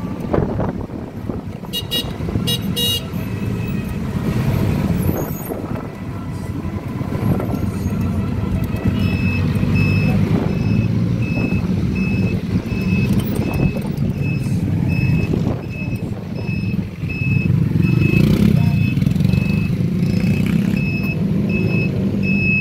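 Street traffic and road noise heard from a small electric tricycle on the move, with a few short high beeps a couple of seconds in. From about nine seconds in, a vehicle's reversing beeper sounds over it, one even high beep after another.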